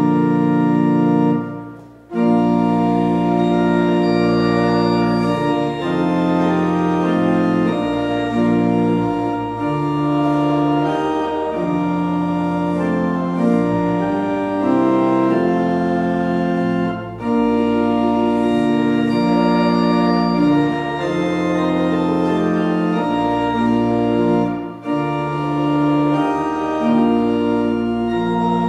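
Church organ playing sustained full chords over a moving low bass line, with a brief break about two seconds in.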